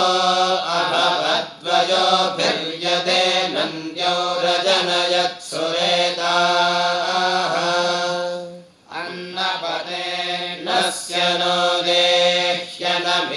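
A group of young men chanting Vedic Sanskrit mantras together in long, evenly pitched phrases, with short breaths between them and a longer pause a little past the middle.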